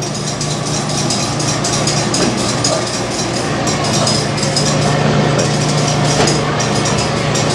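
Dexter T-300 commercial front-load washer in its final spin, the drum running fast with a steady low hum and whir.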